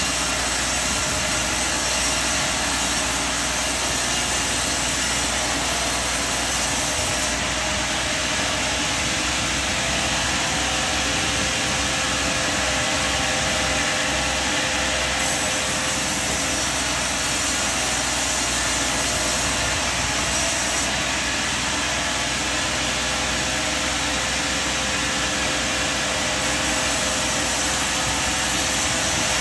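Sawmill machinery running steadily: an even mechanical noise with a faint constant whine, its texture shifting slightly a few times.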